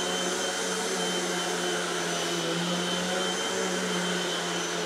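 Hoover WindTunnel Tempo UH30301 bagged upright vacuum cleaner running steadily on carpet: an even motor hum with a rush of air.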